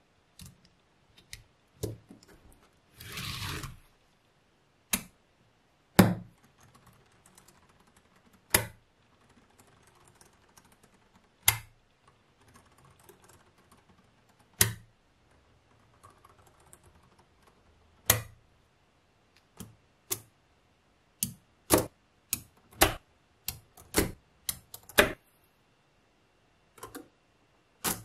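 Blocks of small magnetic balls snapping onto one another: a string of sharp separate clicks a few seconds apart, coming in quick succession in the last third. A short scraping rush about three seconds in.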